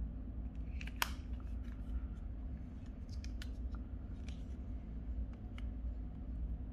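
Small plastic clicks and scrapes from handling a Nokia 3155i flip phone as its back cover is taken off and its battery handled, with one sharper click about a second in, over a steady low hum.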